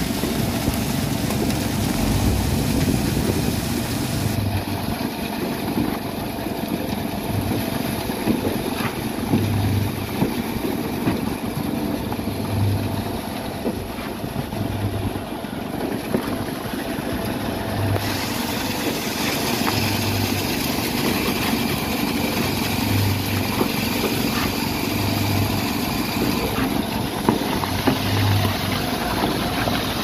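Concrete pump truck running steadily while pumping ready-mix concrete through its boom hose, with a low pulse every two to three seconds as the pump strokes.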